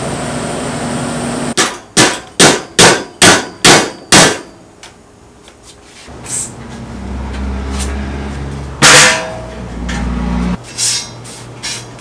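Electric welding arc buzzing steadily, cutting off about a second and a half in. Then a quick run of about seven hammer strikes on steel. After a pause comes a steady low hum, one loud metallic clang with a ringing tone, and a few lighter knocks near the end.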